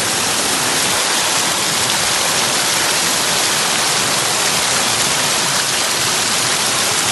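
Creek water pouring over a small cascade, a steady rushing hiss.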